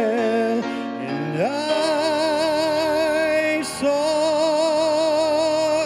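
Man singing a gospel song with long held notes and vibrato, sliding up into a sustained note about a second and a half in and holding another long note near the end.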